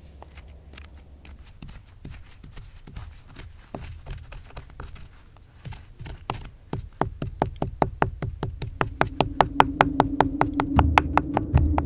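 Stone pestle striking acorns in a granite bedrock mortar hole, quick even knocks that grow faster and louder in the second half. Music with a held low note comes in near the end.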